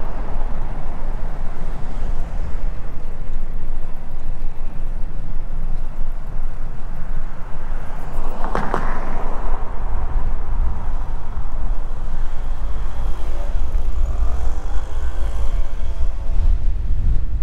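Steady low wind rumble on the microphone of a camera riding on a moving bicycle. Near the middle there is a short burst of clicking, and near the end there are brief rising and falling pitched sounds.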